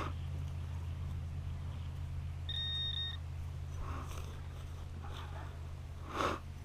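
A single short, steady, high-pitched electronic beep from metal-detecting gear sounding on a target about two and a half seconds in, over a steady low hum.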